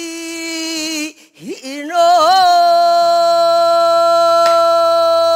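Female pansori singer's voice in sustained melismatic singing: a held, wavering note, a brief break, then a rising glide into one long held note that wavers at first and then stays steady.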